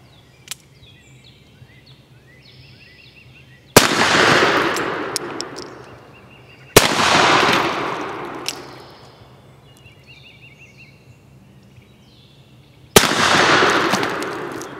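Three shots from a .44 black-powder cap-and-ball revolver, a brass-framed Colt 1851 Navy replica rebuilt as a Griswold and Gunnison, about four seconds in, three seconds later and six seconds after that. Each shot ends in a long fading echo.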